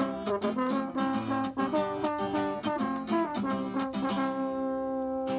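French horn playing a melody over strummed acoustic guitar. About four seconds in, the strumming stops while the horn holds one long note.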